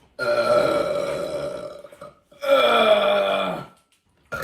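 A person belching two long burps one after the other, the first lasting about two seconds, the second shorter and dropping in pitch as it ends. A third burp starts right at the end.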